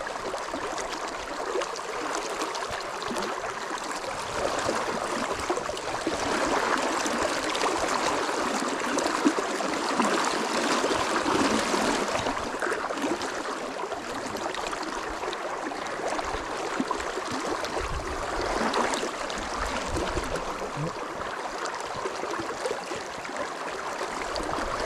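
Shallow river water running over a rocky bed: a steady rush and gurgle of the current.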